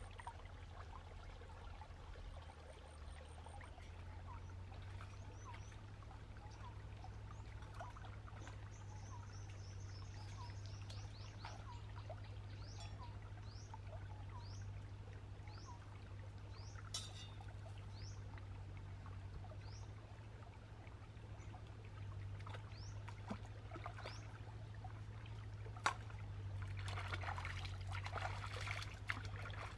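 Shallow stream trickling over rocks under a steady low hum, with a bird giving a series of short, quick chirps through the middle. In the last few seconds the water sound grows louder as hands scoop and splash in the stream.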